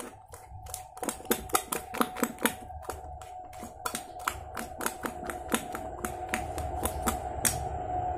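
Metal spoon stirring a thick slime mixture in a glass bowl, clicking sharply against the glass about three or four times a second; the clicking stops near the end.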